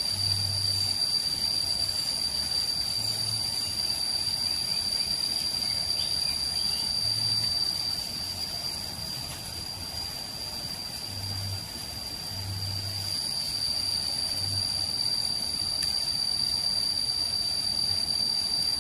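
Forest insects chirring in one unbroken high-pitched drone, with a fainter, even higher band above it.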